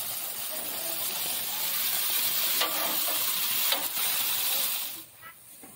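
Sausages sizzling on the grates of a gas grill, a steady hiss, with two sharp clicks of metal tongs against the grate a little past the middle. The sizzle stops abruptly near the end.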